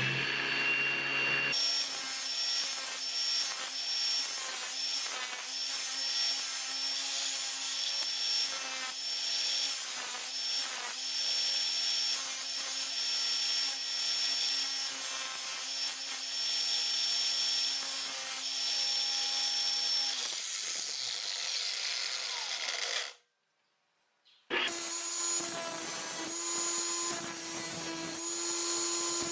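Electric angle grinder running under load, its motor whine dipping briefly again and again as it bites into the work. It stops suddenly near the end, then runs again at a slightly higher pitch after a second or so of silence.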